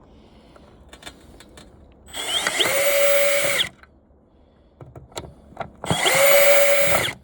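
Milwaukee cordless screw gun run twice, each time for about a second and a half, spinning up quickly and then holding a steady whine as it backs screws out of a TV's casing. Small clicks of handling come between the two runs.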